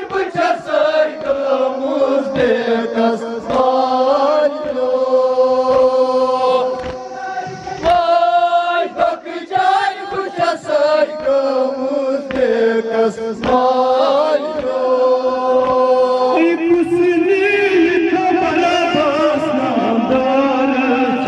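Men chanting a Kashmiri noha, a Shia lament, through microphones in long held lines, with a group of voices joining in. Under the chant runs a beat of hand slaps from mourners striking their chests.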